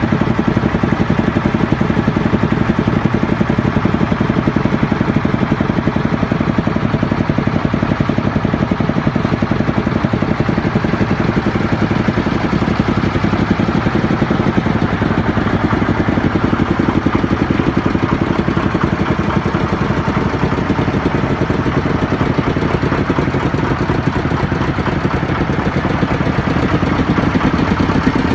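Engine of a ride-on cricket pitch roller idling steadily, with an even, fast beat and no revving.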